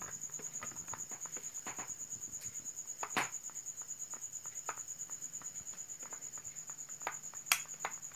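A cricket chirping in a steady, fast pulsing trill, with a few scattered clicks, the loudest near the end.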